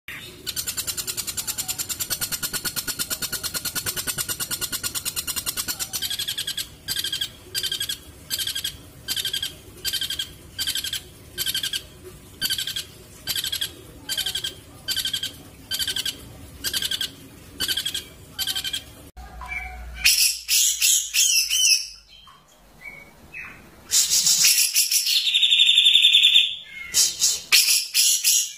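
Songbird calls from a masteran recording meant for teaching caged songbirds filler song. A fast continuous trill comes first. After about six seconds a call repeats roughly one and a half times a second, and in the last third it gives way to loud, varied high chirps with a long shrill call.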